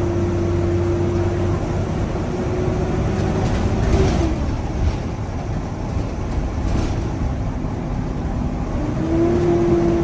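School bus engine cooling fan running loud while the bus drives, over engine and road noise. A steady whine fades out about four seconds in and returns near the end, rising a little in pitch.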